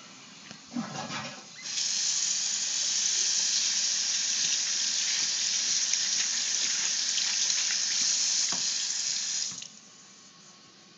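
Bathroom sink tap running, with water splashing over a hand held under the stream. It comes on about two seconds in, after a few brief handling sounds, and is shut off abruptly near the end.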